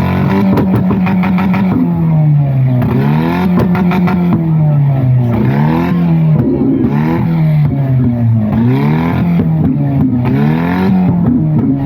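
A vehicle engine revved again and again with a loud exhaust note. Its pitch climbs and falls every second or two without a break.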